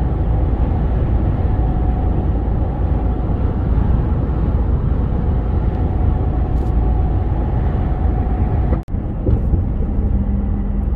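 Steady engine and road noise inside a truck cab while driving. It breaks off for an instant near the end and comes back with a steadier low engine hum.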